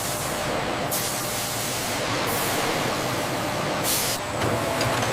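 Steady machinery hiss with three short blasts of high hiss, like air jets: about a second in, again just after two seconds, and near four seconds.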